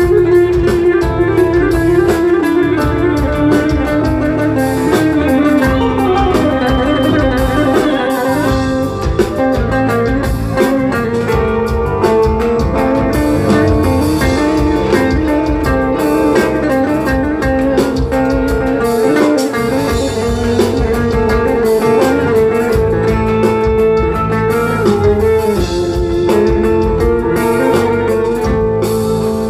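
Live band playing an instrumental passage led by guitar, with a drum kit underneath, loud and steady as heard from the audience.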